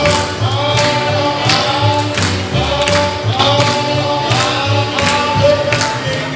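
Dance music with a singing voice over a steady beat of about two beats a second, with a bass line underneath.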